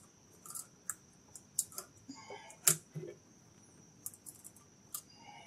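Saw chain and chainsaw bar being handled as the chain is fitted and lined up: scattered light clicks, with one louder knock about two and a half seconds in.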